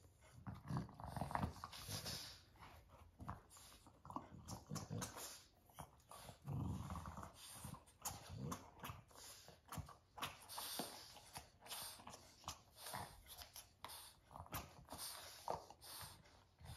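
Boston terriers play-growling while they tussle over a red ball toy: soft low growls in short bouts a few seconds apart, with scattered small clicks and mouthing sounds in between.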